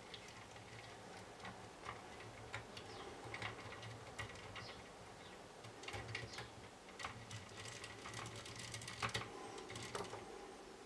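Plastic LEGO Technic gears and axles clicking and ticking irregularly as the crane's boom is raised and lowered by hand, over a faint low hum.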